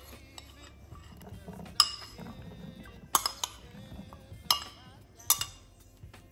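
A metal spoon clinking against porcelain bowls as chopped rhubarb is scraped out: five sharp clinks, each with a short ring, two of them close together, over faint background music.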